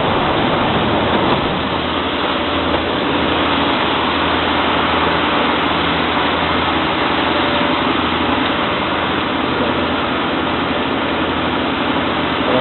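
Machinery running steadily, a continuous noisy drone over a low hum, unchanging throughout.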